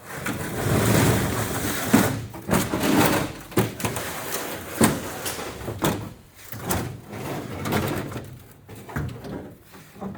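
Fiberglass front clip being pushed and slid onto a car's front end: scraping, rustling and crunching with repeated knocks and bumps as the panel catches and shifts.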